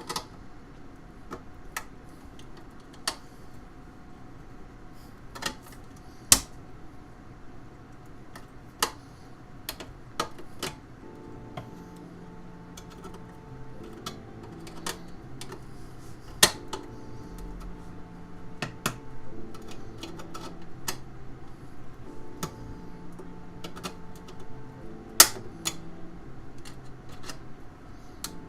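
Irregular sharp clicks and snaps from hand work on the cut sheet-metal panel of a PC case, a few of them much louder than the rest. Faint background music with a simple melody comes in about a third of the way through.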